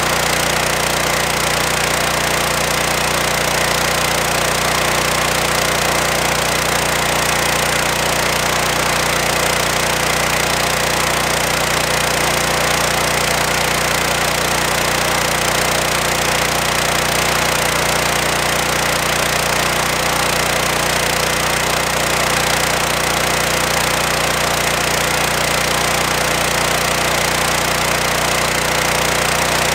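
A petrol pressure washer's Loncin G420 single-cylinder engine running steadily at constant speed, driving the pump that feeds a rotary surface cleaner, over an even hiss.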